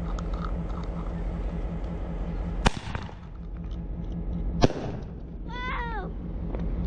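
Two sharp firework bangs about two seconds apart, the second louder, from a small aerial firework going off overhead.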